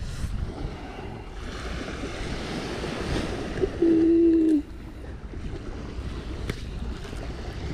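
Surf washing onto a sandy beach with wind on the microphone. About four seconds in, a short steady tone sounds for under a second and is the loudest thing heard.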